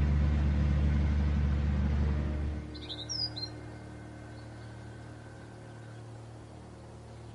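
Old truck's engine idling with a steady low rumble, then shut off about two and a half seconds in, leaving a faint hum. A bird chirps briefly just after the engine stops.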